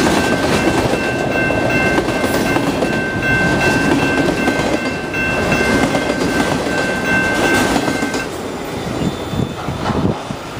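Freight train of autorack cars rolling past at a level crossing: a steady rumble and clatter of wheels over the rails, with a steady high ringing tone that stops about eight seconds in. The sound thins out as the last cars go by.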